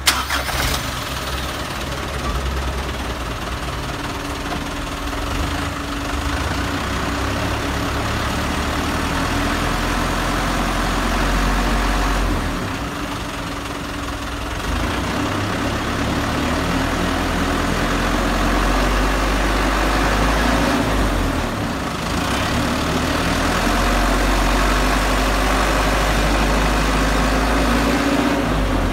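Car engine started and left running, its steady note shifting several times as the engine speed changes.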